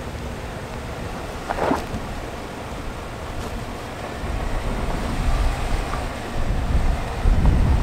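Low rumble of a Chevrolet Silverado ZR2 pickup moving slowly over an off-road rock trail, with a brief crunch about a second and a half in. The rumble grows louder in the second half.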